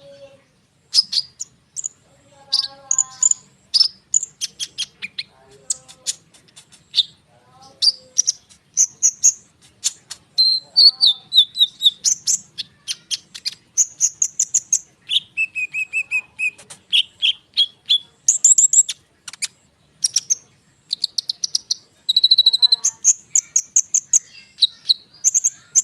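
Olive-backed sunbird singing a dense, rapid song of high chirps and fast rolling trills, phrase after phrase with only short breaks.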